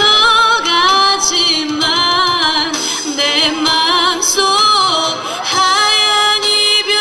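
A woman singing solo into a handheld microphone over the stage sound system, holding long notes with a wavering vibrato.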